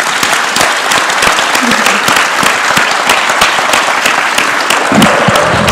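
Large audience applauding: many hands clapping in a dense, steady patter. A low sound comes in near the end.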